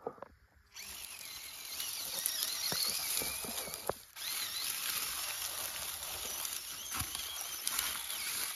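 Small electric RC crawler truck's motor and gears whining as it drives over dry leaf litter, the pitch wavering with the throttle, with scattered crackles from the leaves under its tyres. The whine starts about a second in and breaks off briefly around four seconds in.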